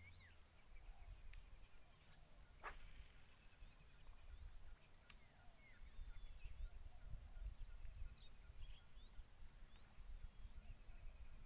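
Faint outdoor ambience: insects keep up long high trills that start and stop every second or two, with short bird chirps scattered through and a low wind rumble on the microphone. A single sharp click about three seconds in.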